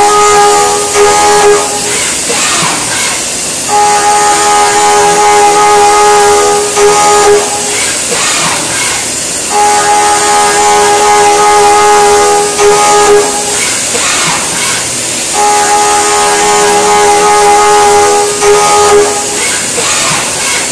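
CNC milling cutter cutting metal: a steady pitched whine held about four seconds at a time, broken by short gaps roughly every six seconds as the cutter makes repeated passes, four in all. A steady hiss of coolant spray runs underneath.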